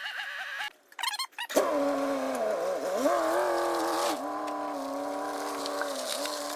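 A truck engine starts about a second and a half in, its pitch dips and rises briefly, then it settles into a steady idle. A wavering whine at the very start stops just before it.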